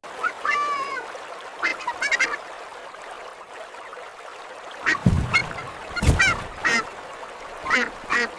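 Farmyard waterfowl calling: a string of about ten short, nasal honks and quacks. Two low thumps come about five and six seconds in.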